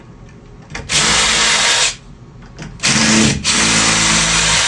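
Cordless drill/driver running in three short runs of about a second each, the last two nearly back to back, backing out the old doorbell's mounting screws.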